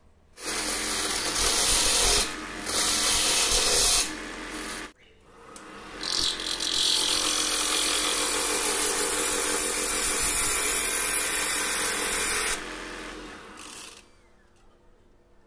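Turning tool cutting a spinning mastic-wood blank on a wood lathe: loud hissing, scraping cuts over the lathe motor's steady hum. The cutting comes in runs, breaking off briefly a couple of seconds in and again around five seconds, then running on and easing off before stopping about a second before the end.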